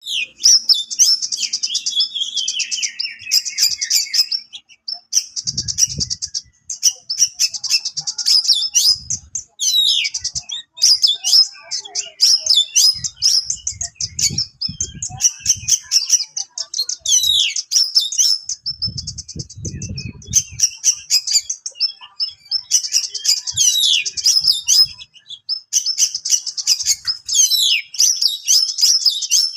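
Oriental magpie-robin (kacer) singing a sharp, rapid song full of fast rasping trills and buzzy bursts (besetan), with quick sweeping whistles between them. A few dull low thumps come through now and then.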